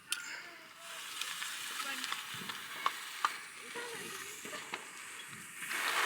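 A firework spraying sparks: a steady hiss with scattered sharp crackles that starts about a second in and grows much louder near the end.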